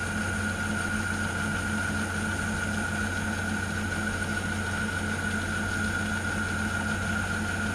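Metal lathe running steadily while a boring tool feeds slowly under power feed into an aluminium bore: a steady high whine over a low hum.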